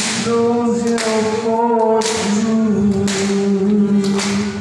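A man singing long held notes over strummed acoustic guitar, with a strum about once a second.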